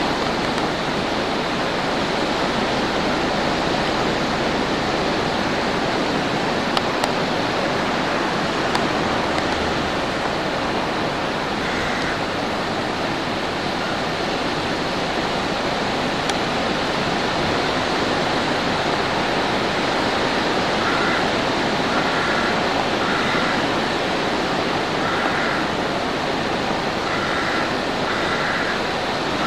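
Sea surf washing along a rocky shoreline, a steady rushing noise.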